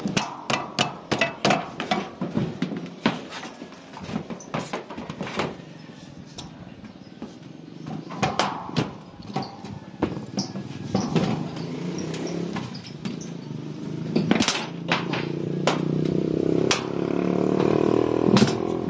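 Hammering at the base of a satellite dish's metal pole mount: quick strikes for the first several seconds, then single knocks spaced a few seconds apart. A low steady hum builds up over the last few seconds.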